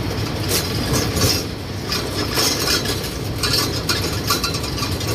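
Steady engine and road rumble in the open rear bed of a moving songthaew pickup, with metal fittings clinking and rattling every second or so.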